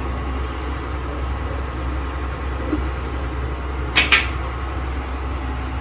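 Steady low hum of a kitchen, with two quick clinks of metal kitchenware close together about four seconds in. Oil heating quietly in an aluminium kadai on a gas stove, not yet sizzling.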